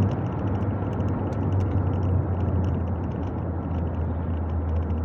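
VW Golf Mk4's 2.0 8-valve petrol engine running steadily while the car drives along, a low engine hum over even tyre and road noise.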